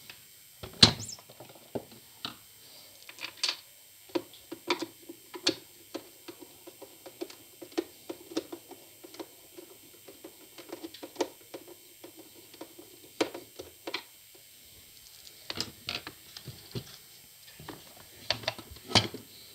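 Irregular clicks and knocks of a stand mixer's plastic housing parts being handled and fitted back together, with a sharper knock about a second in and a denser run of light clicking through the middle.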